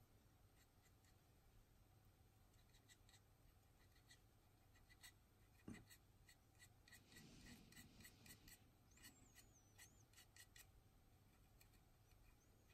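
Near silence, with faint scattered light ticks and soft rubbing as a fine paintbrush works weathering paint along the plastic surface of a scale model aircraft.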